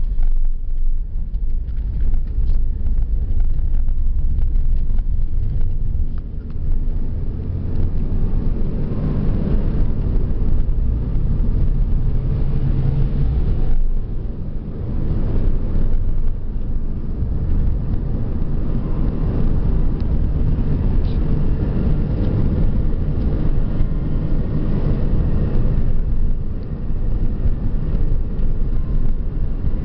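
Steady low rumble of a car's engine and tyre noise on the road, dipping briefly now and then.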